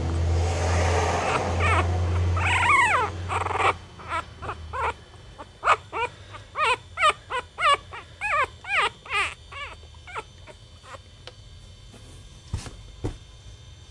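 Young Chihuahua puppy crying in a string of short, high whimpering squeals, about two a second, after a few seconds of loud rustling rumble. Two sharp knocks near the end.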